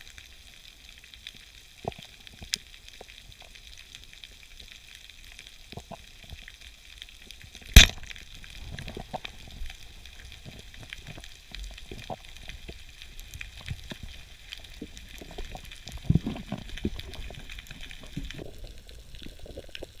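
Underwater sound: a single sharp, loud crack about eight seconds in, the band-powered speargun firing, over a steady crackling hiss of the sea. Scattered clicks and bubbling follow, with a louder low splash-like burst later on.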